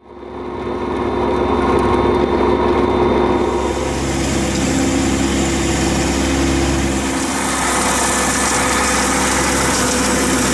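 An engine running steadily at a constant speed, fading in over the first second.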